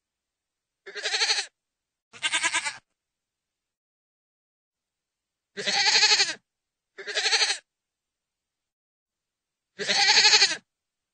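Goat bleating: five wavering bleats, each half a second to a second long, with dead silence between them.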